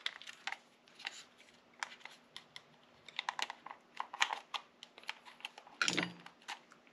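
Irregular small plastic clicks and taps as the plastic housing of a seat heater switch is pried apart and handled on the bench, with a louder clack about six seconds in.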